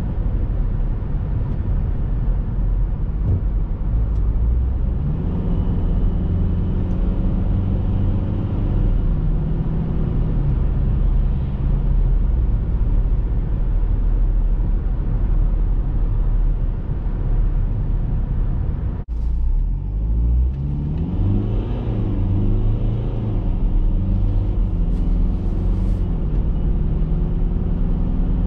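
Cabin sound of a BMW X3 F25's 2.0-litre four-cylinder diesel with ZF automatic on the move: steady road and tyre rumble under the engine, whose pitch climbs and then drops back in steps as the gearbox shifts. About 19 seconds in the sound breaks off abruptly and resumes with the engine again rising and falling.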